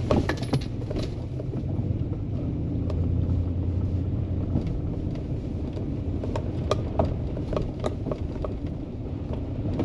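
Vehicle engine running steadily at low speed on a rough, washed-out trail, with scattered knocks and rattles from bumps.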